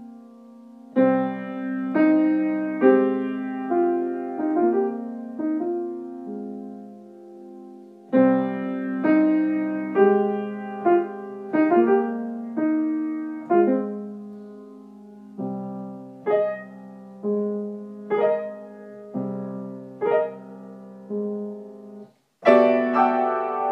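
Solo piano improvisation in slow phrases: chords and single notes struck and left to ring and fade. Near the end the sound breaks off for a moment and a louder chord comes in.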